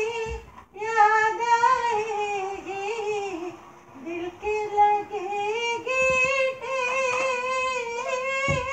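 A high voice singing a slow melody with long held notes. There is a short break about half a second in.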